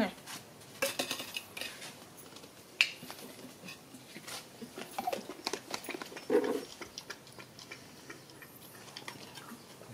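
Dog lapping milk from a ceramic plate, with scattered clicks and clinks of the plate and a sharp knock about three seconds in.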